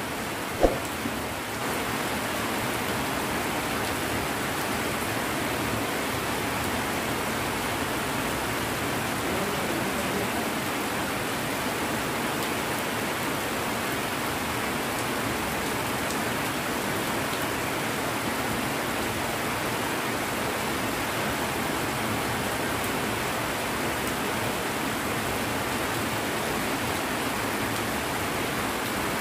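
Rain falling steadily, an even hiss with no breaks, and one sharp click just under a second in.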